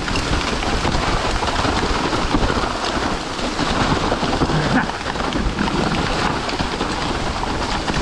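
Steady hiss of heavy rain with a low rumble underneath, as a mountain bike rolls along a wet trail.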